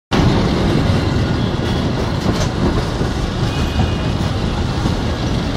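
Diesel-hauled passenger train running along the track, heard from an open window of a moving coach: a loud, steady rumble of wheels on rail.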